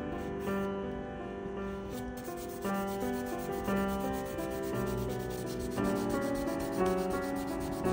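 Charcoal rubbing and scratching on paper, under background music of held notes that change every half second or so.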